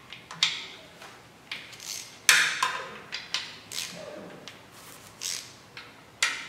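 Hand socket wrench working the oil-pan bolts of an engine: a string of irregular sharp metallic clicks and clinks, the loudest about two and a half seconds in.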